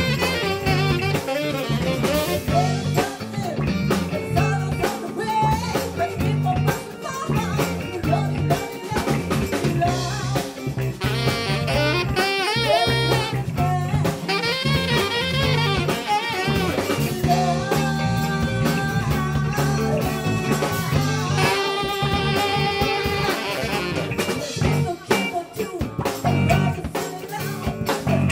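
Live band playing a funk-rock tune: saxophone and trumpet lines over a steady drum kit and electric bass groove.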